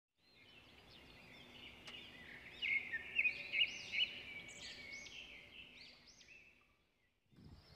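A run of quick, high, bird-like chirps, rising and falling in pitch, loudest about three to four seconds in, over a faint steady hum.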